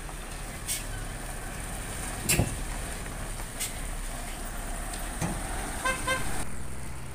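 Heavy diesel container truck running at low speed as it passes, with a few sharp clicks and one louder knock in its first half. A vehicle horn gives two short toots near the end.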